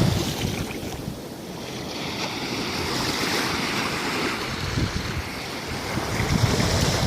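Gulf surf breaking and washing up the beach, easing off about a second in and building again, with wind buffeting the microphone.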